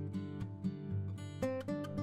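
Background music: acoustic guitar playing a run of plucked notes.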